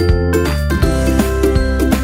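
Upbeat background music with a bass line and a bright, jingly melody over a steady beat.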